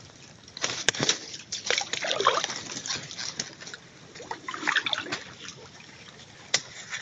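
Footsteps wading through shallow, muddy swamp water among grass and undergrowth: irregular splashing and sloshing in two spells, with a couple of sharp clicks.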